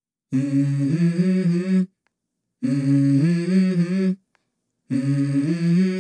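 Background music: a lone voice humming three short melodic phrases with no instruments, each about a second and a half long, separated by brief silences.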